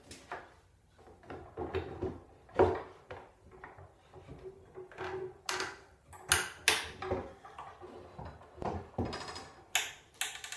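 Pipe clamps being moved and tightened across a glued-up black walnut panel: irregular wooden knocks and clunks of the clamp bars and jaws against the boards and bench, with several sharp clicks.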